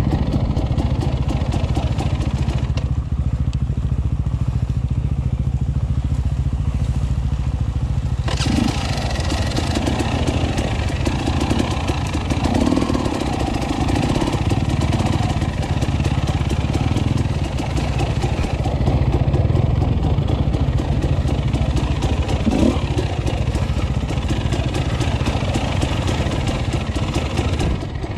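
KTM 300 XC-W two-stroke enduro motorcycle running under way on a trail. The engine runs steadily throughout, and about eight seconds in the sound turns noisier and harsher, staying so to the end.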